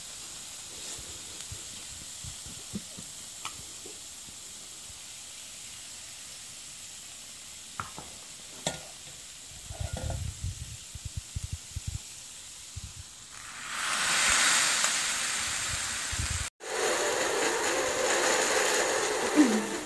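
Wet tapioca pearls sizzling on the hot plates of a round waffle maker: a faint steady hiss with a few small knocks, then a much louder rush of steam hiss about two-thirds through, once the lid is down on them. The loud hiss cuts out for a moment and goes on to the end.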